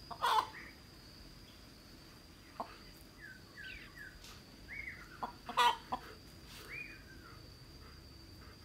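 Chickens clucking in short calls, with a louder squawk just after the start and another past the middle, over a steady high-pitched whine.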